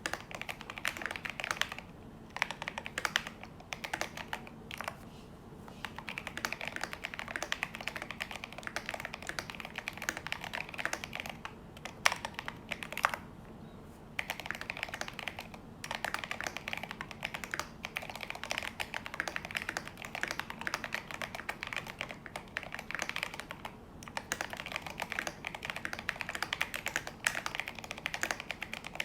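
Thocky typing on a Drop CTRL mechanical keyboard with lubed Holy Panda tactile switches and Drop MT3 keycaps: a quick, uneven run of keystrokes with a few brief pauses.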